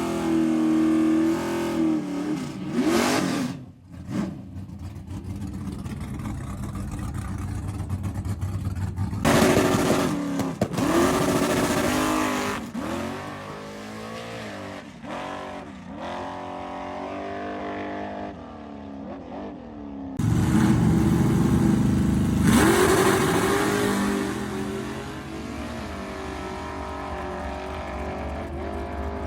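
Ford Mustang SVT's V8 engine revving and accelerating, its pitch rising in several pulls. The sound changes abruptly twice, as one clip cuts to the next.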